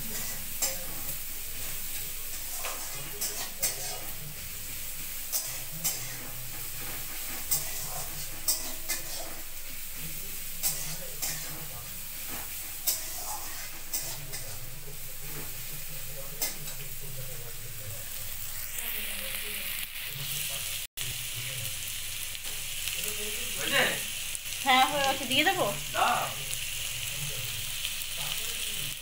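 Sliced onions sizzling in hot oil in a kadai, with a steel spatula clicking against the pan every second or two as they are stirred. The sizzle grows louder about two-thirds of the way through, and a few squeaky scrapes of the spatula come near the end.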